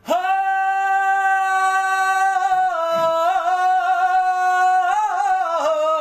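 Wordless singing on long held notes, with wavering ornamental turns about halfway through and near the end: the opening alaap of a Punjabi song.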